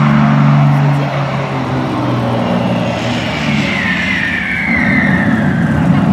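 Warplane sound effect over a show's loudspeakers: an aircraft engine drone that drops in pitch and fades over the first few seconds, then a high whistle sliding downward from about three seconds in.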